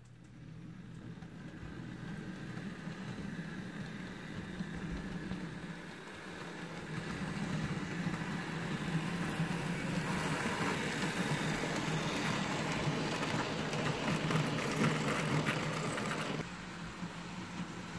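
Fleischmann H0 model steam tank locomotive with passenger coaches running on the layout track: a steady motor hum and the rumble of wheels on rail. It grows louder as the train comes past and drops off suddenly near the end.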